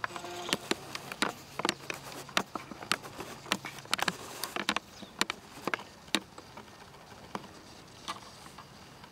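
Camcorder zoom motor whirring as the lens zooms out, with sharp irregular clicks, many in the first six seconds and only a few after.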